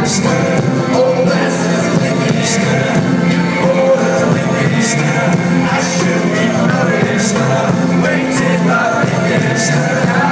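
A band playing live with singing: sustained low bass notes under a sliding vocal line, and a sharp drum or cymbal hit about every two and a half seconds.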